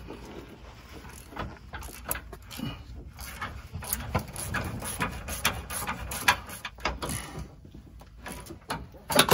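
Hand ratchet with an 18 mm socket backing the nut off a sway bar end link stud, its pawl clicking in quick irregular runs as it is worked back and forth.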